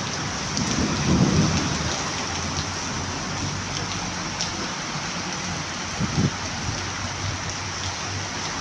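Steady rain falling and pattering on surfaces, an even hiss, with a louder low rumble about a second in.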